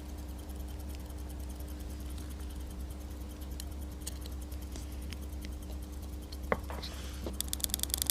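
Sparse light clicks of small watch parts and tools being handled over a steady low hum. Near the end comes a few louder clicks, then a quick run of sharp ticks.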